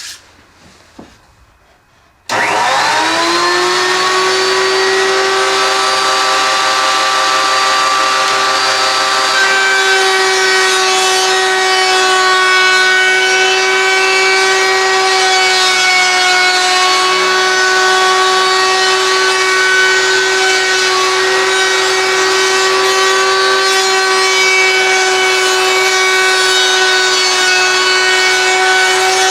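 A wood router switches on about two seconds in, its whine rising quickly to full speed. It then runs steadily while rounding over the outside edge of a wooden boomerang.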